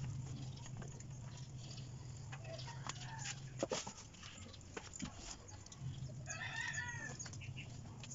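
A chicken calling once, faintly, about six seconds in, over a low steady hum. A few light knocks come a little after three seconds in.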